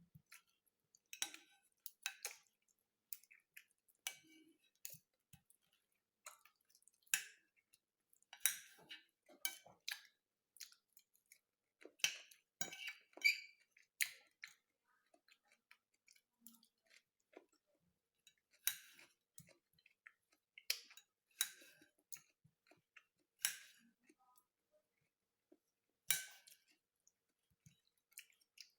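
A person chewing food close to the microphone: irregular short, wet mouth clicks and smacks, several at a time with quiet gaps between.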